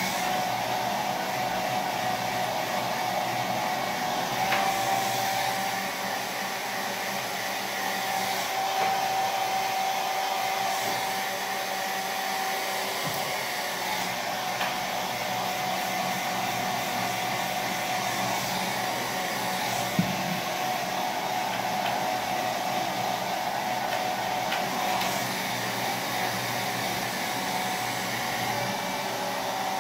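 Handheld hair dryer running steadily, a rushing blow of air with a steady whine from its motor, blowing on hair. A single sharp click about two-thirds of the way through.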